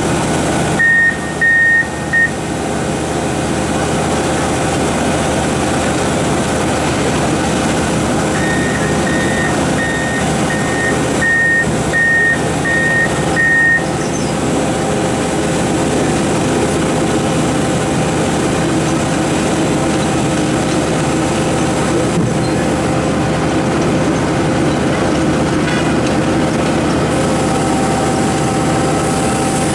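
Komatsu PC4000 mining excavator running steadily, with a high-pitched warning alarm beeping: a few beeps about a second in, then a run of evenly spaced beeps, a little under two a second, for about five seconds.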